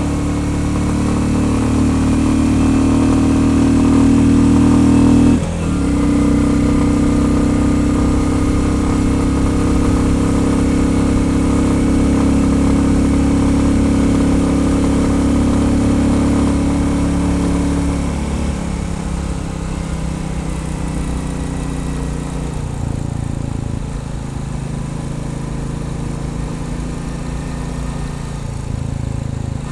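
Royal Enfield Bullet 350's single-cylinder engine running under way at steady revs, with a short dip in the sound about five seconds in. From about two-thirds of the way through the engine note drops and goes quieter as the bike eases off.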